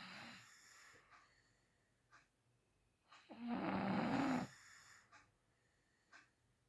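A sleeping person snoring: the fading end of one snore at the start, then one loud snore of about a second a little past the middle, with quiet between snores.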